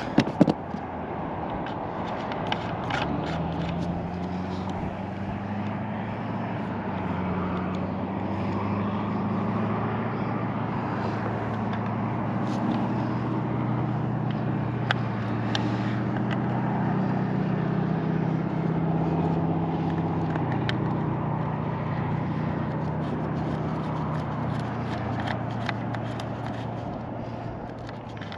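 An engine hum that grows louder over the first half and fades away near the end, with a few sharp clicks and knocks near the start.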